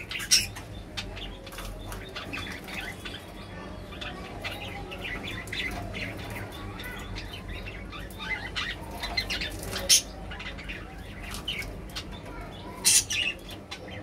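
Budgerigars chirping and chattering in short, quick notes, with a few sharp louder clicks, the loudest about ten and thirteen seconds in.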